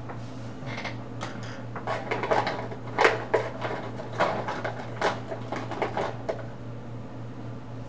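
Coloring supplies being handled on a tabletop: a run of short, light clicks and scrapes, loudest about three seconds in, over a steady low hum.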